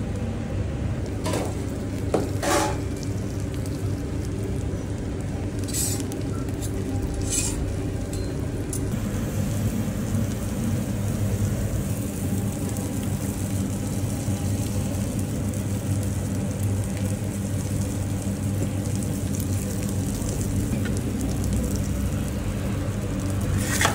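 Food sizzling on a flat-top griddle over a steady low hum, with a few sharp knocks in the first several seconds. The sizzle grows louder and hissier about nine seconds in.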